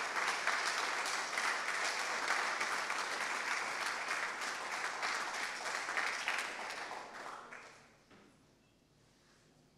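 Audience applauding, many hands clapping at once. The applause dies away about seven to eight seconds in.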